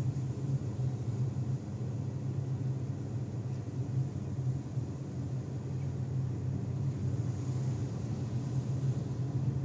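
Car engine and road noise heard from inside the cabin while driving slowly: a steady low drone with no sudden sounds.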